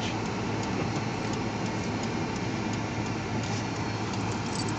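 Steady engine and road noise inside a moving car's cabin, with a constant low hum.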